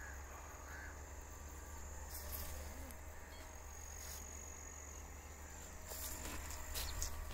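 Insects chirring outdoors in a steady high-pitched trill over a low steady rumble, with a few brief clicks near the end.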